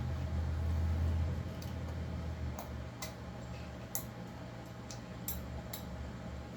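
Scattered small clicks and ticks of metal chainsaw parts and hand tools being handled during a teardown, over a low steady hum that drops in level about two and a half seconds in.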